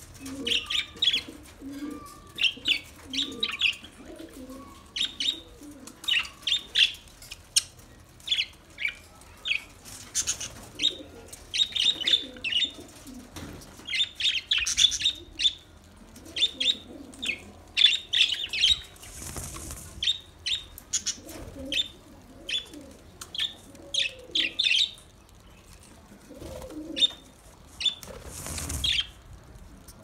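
A flock of budgerigars chirping and chattering in quick, overlapping clusters of short high calls, with some lower calls underneath. There are two brief bursts of wing flapping, one past the middle and one near the end.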